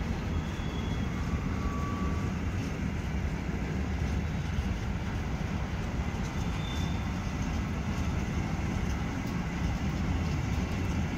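Container train wagons rolling past on the rails, a steady low rumble of wheels and running gear.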